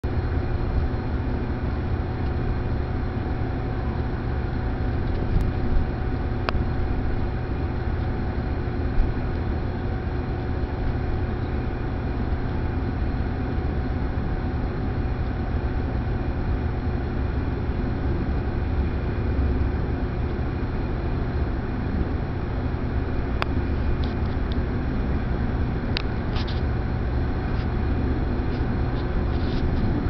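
Steady outdoor background noise with a strong low rumble and a faint steady hum, broken by a few light clicks.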